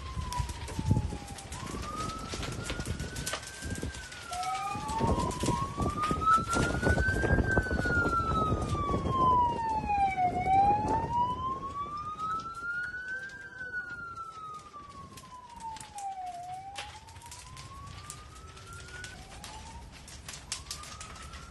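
An emergency vehicle's siren wails in slow sweeps, rising and falling about every three seconds, growing loudest around the middle and then fading. Underneath, a burning house crackles with many sharp pops throughout.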